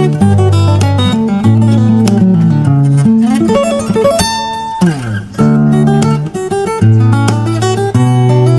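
Background music: acoustic guitar playing a strummed and plucked melody, with one held ringing note about four seconds in followed by a downward slide.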